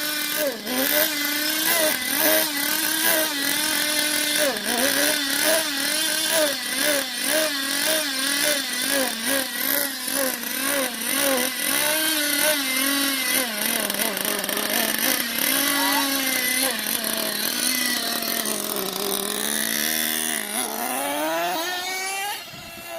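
Small nitro RC car engine running with a buzzy, chainsaw-like note, its throttle blipped up and down about twice a second. Near the end it revs up in a long rising sweep.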